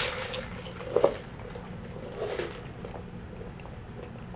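Soft sipping of a drink through a straw from a plastic cup, with one light knock of handling about a second in.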